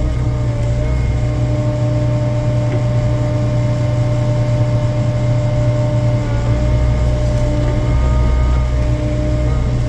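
Excavator's diesel engine running at a steady pitch, with a strong low hum and an even tone held above it.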